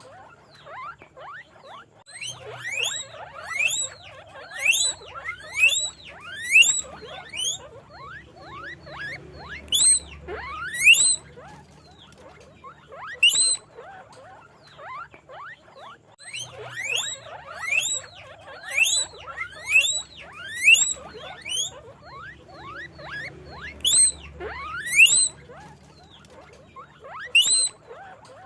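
Guinea pigs squeaking, with repeated short, high, rising whistled squeaks about once or twice a second and fainter chirps in between; the calls thin out briefly in the middle.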